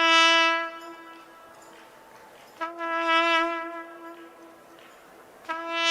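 Brass instrument sounding three long, held notes at the same pitch, each fading away before the next one starts.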